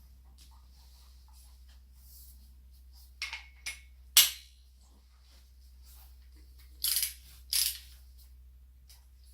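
Handling of steel impact sockets and their case: a few sharp clicks and clinks about three to four seconds in, the loudest near four seconds, then two short rasping bursts around seven seconds.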